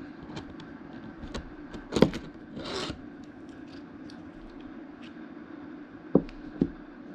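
Motorcycle rear-shock parts being handled on a workbench as the main rod assembly is taken out: scattered light clicks and scrapes, one loud clunk about two seconds in, a short scrape just after it, and two sharp knocks near the end.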